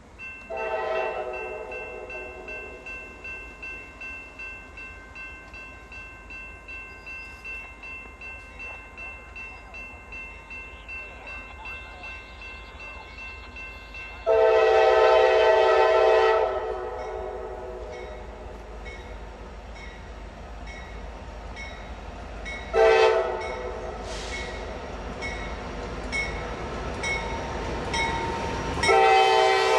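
Norfolk Southern AC44C6M diesel locomotive's air horn sounding the grade-crossing signal: long, long, short, long, the warning for an approaching road crossing. A bell rings steadily about twice a second between the blasts, over the low rumble of the approaching freight train.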